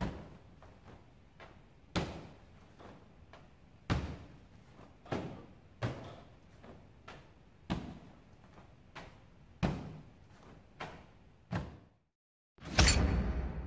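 Medicine ball repeatedly thrown against a wall: a sharp thud every one to two seconds, each with a short echo, and fainter knocks in between. The thuds stop about twelve seconds in, and a short loud burst of sound follows near the end.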